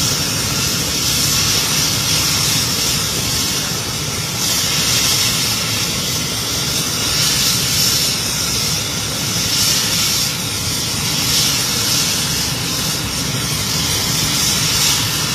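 A Bell 430 helicopter's twin turbine engines and main rotor run on the ground, making a steady high whine over a continuous rushing noise.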